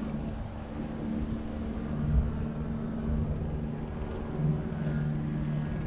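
City street traffic: a steady low engine hum with a brief deeper rumble about two seconds in.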